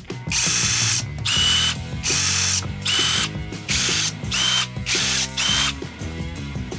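Bosch GDR 18V cordless impact driver run in seven short bursts of about half a second each, its whine rising briefly as each trigger pull starts.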